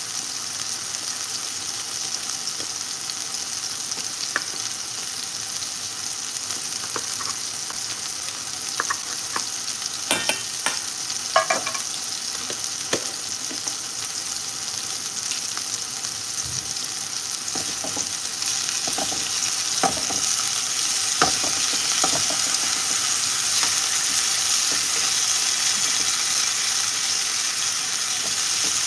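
Chicken tenderloins sizzling in olive oil in a skillet: a steady frying hiss that gets louder about two-thirds of the way through. Scattered light clicks and knocks of kitchen utensils come through over it.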